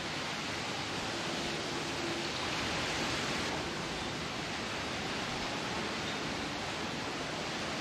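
Steady hiss of rain falling.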